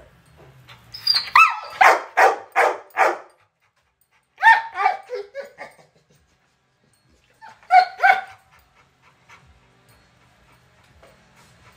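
Pit bull-type dog in a wire crate vocalizing in three bouts of short, high-pitched cries, each bout starting high and dropping in pitch. The first bout is the longest, at about five cries.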